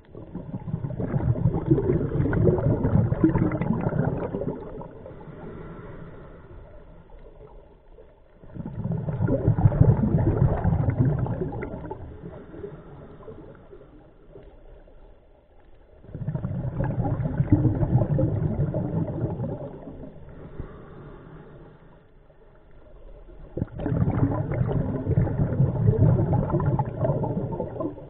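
Scuba diver's regulator exhaust bubbling on each exhale: four long bursts of bubbles, each about four seconds, coming about every seven to eight seconds with quieter pauses between, the slow rhythm of a diver breathing.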